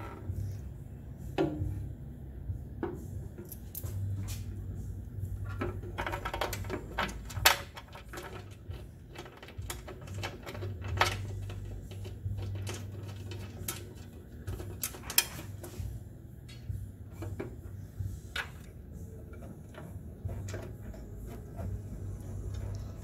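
Light metallic clicks and clinks from metal brackets and parts being handled under a truck's chassis, scattered irregularly with a couple of sharper knocks, over a low hum that comes and goes.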